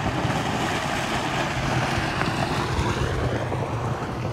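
A motor vehicle's engine running steadily under a rushing noise.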